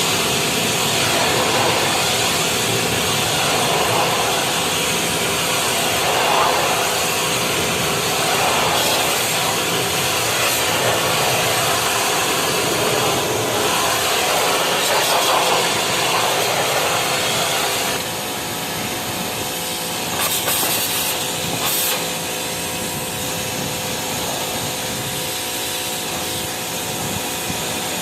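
Steady hiss of water spraying onto an air-conditioner outdoor unit during cleaning, with a faint steady hum under it; the hiss drops a little about two-thirds of the way through.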